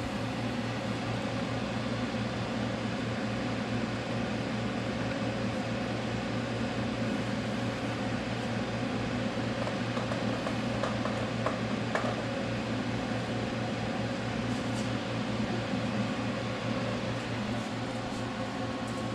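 Steady electrical hum and fan whir from a powered-on welding machine idling, with a few faint clicks about halfway through.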